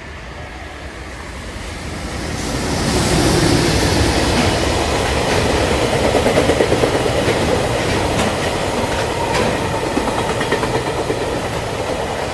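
Train rolling by, its wheels clicking over rail joints, swelling louder about two seconds in and then running on steadily.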